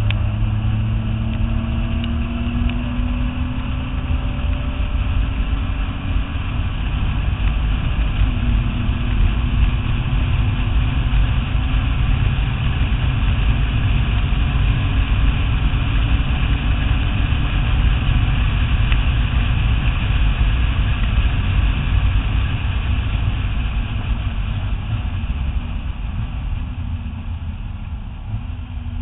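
Nissan GT-R running at speed on a race track: a steady low engine drone under loud road and wind noise. The engine note rises over the first few seconds, then drops about three seconds in.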